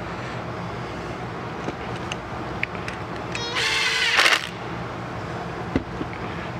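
A cordless impact driver runs for about a second, spinning up with a whine and hammering briefly as it drives a screw into a brake caliper's plate. A few light metal clinks come before and after, over a steady low shop hum.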